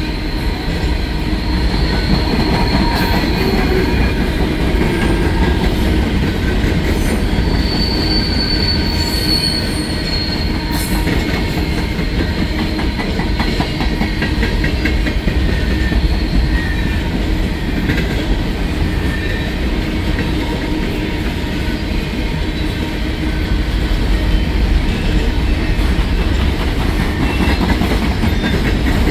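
Freight train of coal cars rolling past: a steady heavy rumble of steel wheels on rail, with thin high-pitched wheel squeals coming and going, loudest about eight to ten seconds in.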